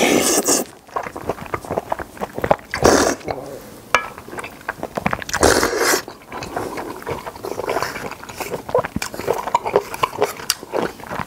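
Close-miked eating of spicy seafood noodle stew: loud slurps of thick noodles and broth at the start, about 3 s in and about 5.5 s in, with wet chewing and lip-smacking clicks between them.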